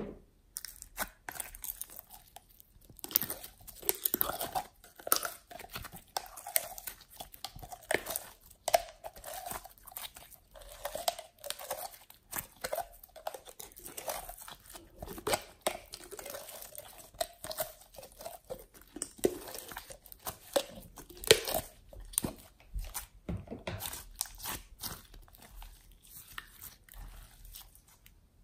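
Clear gold glitter slime being poured from a plastic jar and then stretched and folded by hand, with a dense, irregular stream of sticky clicks and crackles as it pulls and pops.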